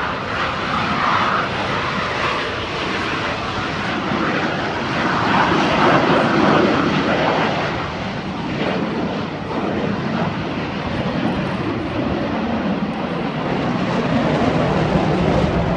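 Blue Angels F/A-18 Hornet jets flying low and fast overhead, a continuous jet-engine rush that swells about five seconds in and again near the end.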